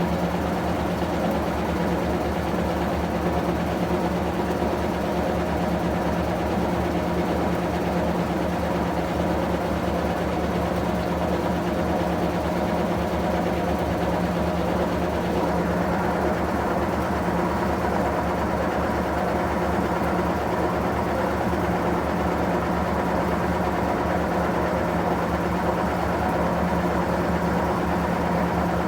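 Electrolux Prosdócimo washing machine running, a steady motor hum with a strong low tone and no break or change in rhythm.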